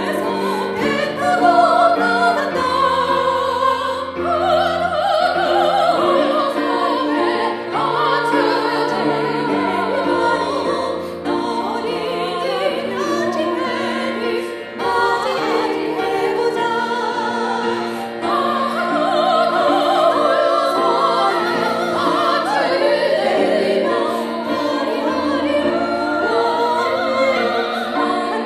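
Three women singing a Korean praise song together into microphones, with held low accompaniment notes under their voices.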